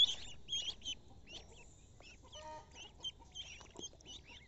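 A flock of ducklings peeping: many short, high peeps, thickest and loudest at the start and thinning out toward the end.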